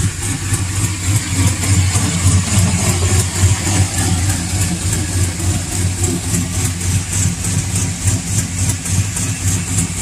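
Chevy Silverado's 5.3 V8, fitted with long-tube headers and a cam, idling with a fast tick that has a little rhythm to it but is not consistent. The owner traces the tick to an exhaust leak at one header primary through paper-like header gaskets, though it sounds a lot like a valve train tick.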